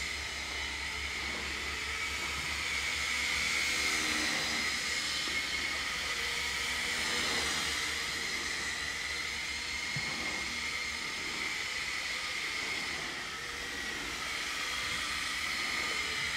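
MJX F647 micro RC helicopter hovering and manoeuvring: the electric motors and spinning rotor give a steady high whine over a hiss. The whine rises and falls a little in pitch as the throttle changes.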